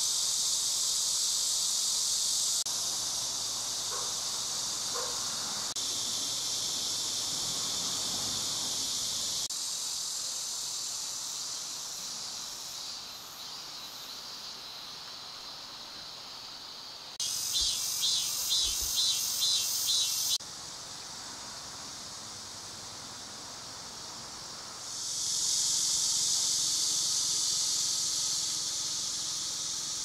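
Steady high-pitched insect chorus, changing in level at several cuts. For about three seconds past the middle, a louder pulsing insect call comes in, about two to three pulses a second.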